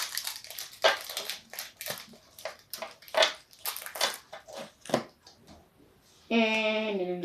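Foil booster pack wrapper crinkling and tearing in irregular crackles as a trading card pack is opened, then a person humming a held note near the end.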